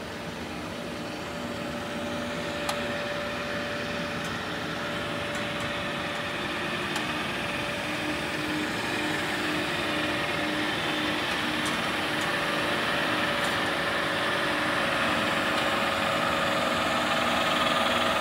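A CC universal cylindrical grinder running, with its electric motors and hydraulic pump making a steady hum. A few steady tones sit in the hum, and it grows gradually louder towards the end.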